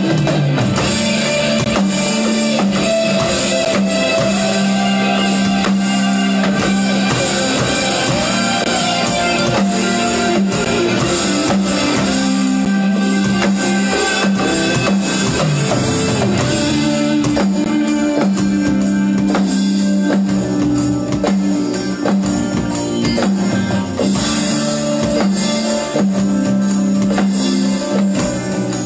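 Alternative rock song with electric guitar, bass and a full drum kit playing at a steady driving pace. The drums are played live on an electronic drum kit along with the recording.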